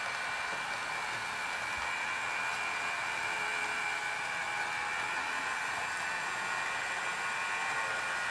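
Roco model DB class 110 electric locomotive running on its track with a train of coaches: a steady whirring of its small electric motor and wheels on the rails, with a constant high whine.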